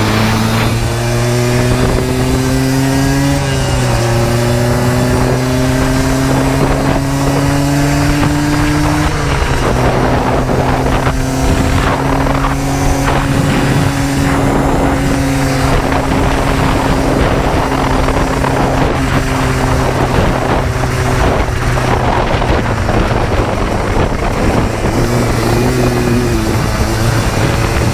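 Yamaha Blaster 200's two-stroke single-cylinder engine at full throttle. Its pitch climbs and drops back at two gear shifts, about three and nine seconds in, then holds at high revs. Wind buffets the microphone throughout.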